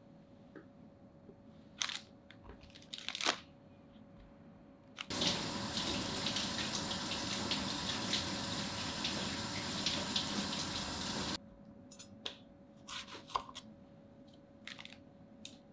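A water tap running for about six seconds, starting and stopping abruptly, between light taps and knocks of a kitchen knife on a wooden cutting board as strawberries are cut.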